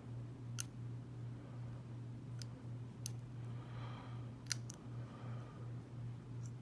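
Dimple pick working the pins of a Keyways dimple lock cylinder under tension: about five sharp, light clicks, irregularly spaced, as pins are set. A steady low hum runs underneath.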